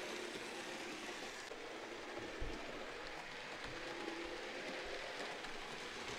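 HO-scale Thomas and Percy model locomotives running on track: a steady, fairly quiet whir and rattle of small motors and wheels, with an occasional faint click.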